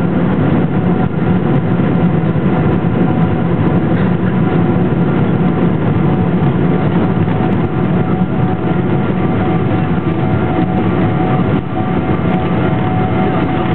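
Steady cabin noise of a Boeing 777-200ER on its landing roll-out, heard from a window seat over the wing. Its GE90 engines give a continuous hum with a few steady tones, over a low rumble from the wheels on the runway.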